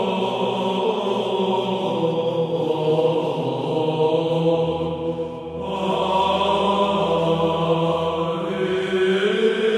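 Byzantine choir chanting a slow, melismatic hymn in the plagal second tone, with long-held melody notes over a steady sung drone (ison). A lower drone note comes in about halfway through.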